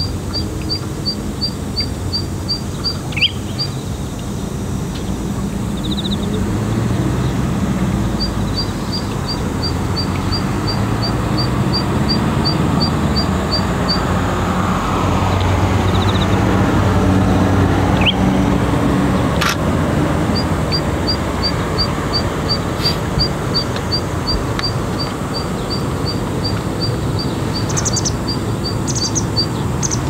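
Motor vehicle engine rumble from passing traffic, swelling to its loudest about halfway through as a vehicle goes by. Over it, a run of short, even, high chirps repeats about three times a second, stopping and starting again twice.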